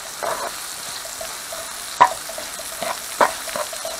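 Diced onion frying lightly in oil in a non-stick pan with a steady sizzle. A plastic slotted spatula stirring it scrapes and knocks against the pan several times, the sharpest knock about two seconds in.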